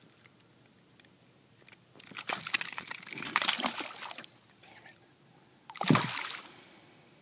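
A small fish, just unhooked and dropped over the side of a boat, splashing and thrashing at the surface of the lake for about two seconds, then one more short, sharp splash about six seconds in.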